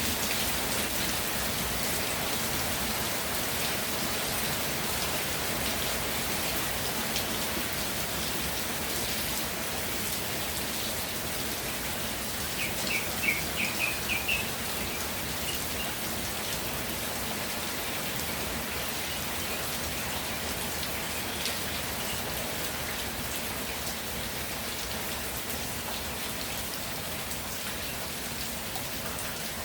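Steady rainfall pattering on the ground. About halfway through comes a brief run of high chirps, five or six quick notes.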